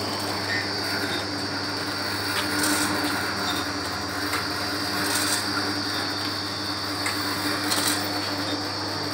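Automatic vertical pouch packing machine running: a steady motor hum and a high whine, with a short mechanical clatter repeating about every two and a half seconds.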